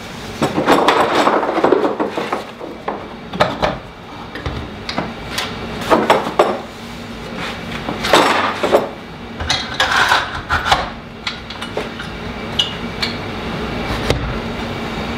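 Handling clatter of a Milwaukee Portaband saw being taken from its case, seated in an aluminum wall mount and fitted with its metal table: a string of irregular knocks, clacks and rattles of metal and plastic, with the saw not running.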